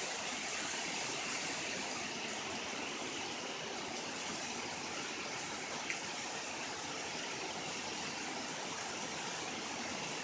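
Heavy rain pouring down as a dense, steady hiss, with one small click about six seconds in.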